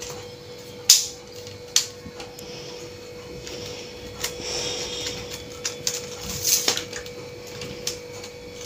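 Clicks and clacks of a lightweight aluminium tripod being unfolded: the quick lever leg locks snapping open and the leg sections sliding out and spreading, with one sharp click about a second in the loudest. A faint steady hum sits underneath.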